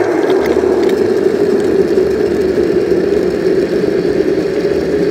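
Countertop blender running steadily at full speed, grinding soaked chickpeas with water into a slurry.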